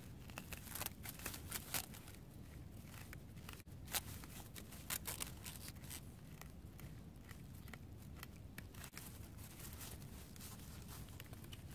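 A metal hand tool scraping and chopping into soil among dry straw mulch, making a run of short crackly scrapes, rustles and clicks. They are busiest in the first half, with one sharp click about four seconds in. The soil is being loosened to sow cotton seed.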